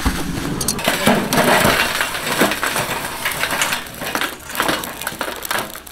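Lumps of charcoal clinking, crunching and scraping against steel as they are shifted in a steel fire pit with metal tongs, with many quick clicks and knocks.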